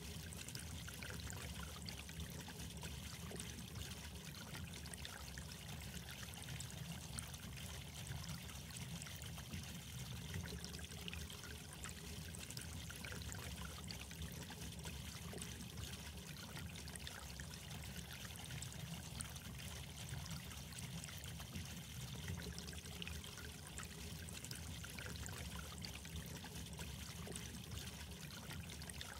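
Steady, quiet trickle of running water.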